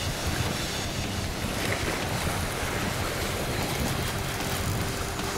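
Steady wind buffeting the microphone over the wash of sea waves against a rocky shore.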